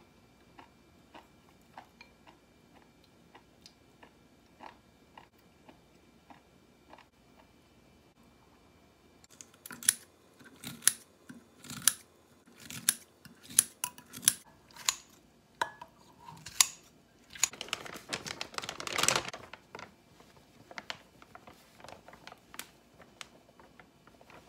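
Kitchen scissors snipping kimchi in a glass bowl, with sharp snips about one or two a second starting some nine seconds in. Near the end of the cutting comes a louder stretch of continuous noise about two seconds long.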